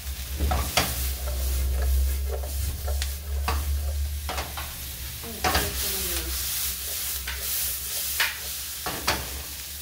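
Vegetables and bacon sizzling in oil in a frying pan as they are stirred, with a steady hiss and frequent short scrapes and taps of the utensil against the pan. A low hum runs underneath.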